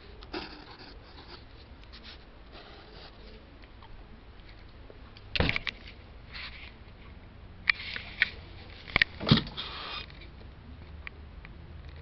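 Handling noise: soft rustles of paper and hand-held gear with a few sharp knocks and clicks, the loudest about five seconds in and a cluster around nine seconds.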